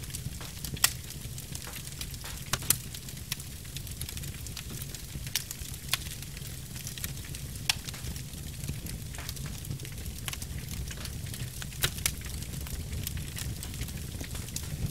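Log fire crackling, with irregular sharp pops every second or two over a low, steady rumble.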